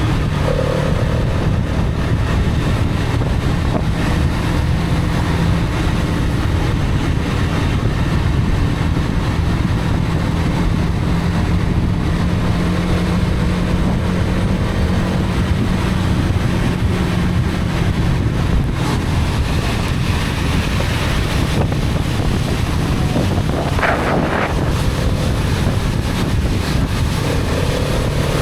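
Hero Karizma XMR's single-cylinder engine running at a steady cruise, heard on the move with heavy wind rushing over the microphone. The engine note holds steady for most of the stretch.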